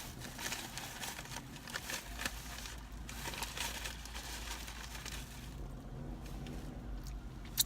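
Close-up eating sounds of shrimp pasta: chewing and utensil handling, heard as a run of small clicks and crackles. It grows quieter partway through, and a sharp click comes just before the end.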